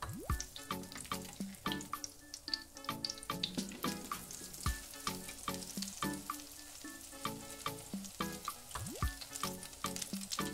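Breaded potato patties sizzling and frying in hot oil in a frying pan, a steady crackling hiss, with background music playing over it.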